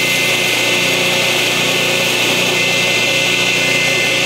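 Belt grinder running steadily with an 800-grit belt, with a constant hum and a high whine, grinding the broken tip of a steel knife blade flat.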